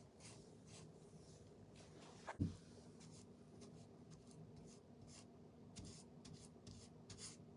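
Faint, repeated swishes of a paintbrush stroking paint onto a corbel, with one soft knock about two and a half seconds in.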